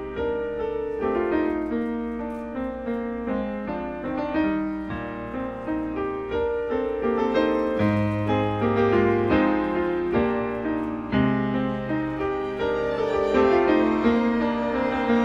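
Grand piano playing a flowing run of rippling, broken-chord figures over low bass notes that change every couple of seconds.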